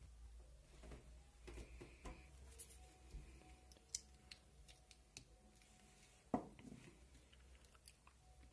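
Faint clicks and rustles of hands handling a 9-volt battery with its snap connector and thin hookup wires, with one sharper click about six seconds in.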